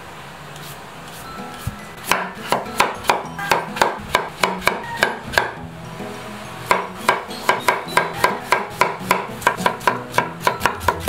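Chef's knife chopping carrot and green bell pepper on a wooden cutting board: quick, even knocks of the blade on the board, about four a second, in two runs starting about two seconds in with a short pause between them. Background music plays underneath.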